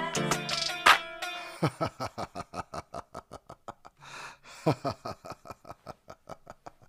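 Hip-hop track's outro: the beat plays for a moment, then thins to a fast, even run of ticks, about six a second, with two falling pitch glides, fading away.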